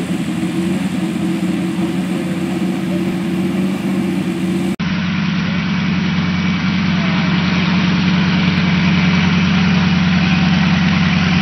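Helicopter engine and rotor running steadily on the ground with a low, even drone. About five seconds in the sound breaks off in a brief dropout at an edit, and a similar steady engine drone carries on, a little louder.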